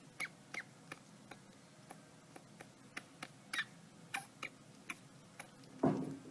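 A small animal sneezing over and over: a string of short, sharp sneezes at irregular spacing, about two or three a second, with one louder, fuller sneeze near the end.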